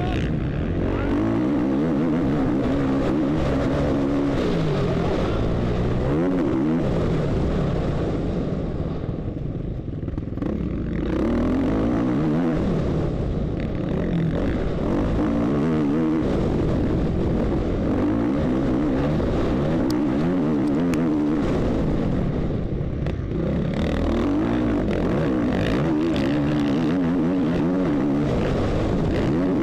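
450cc four-stroke motocross bike engine heard close up from on board, revving up and down continuously as the rider works the throttle and gears. The throttle is closed briefly about a third of the way in and again about two-thirds through, the engine note dropping before picking up again.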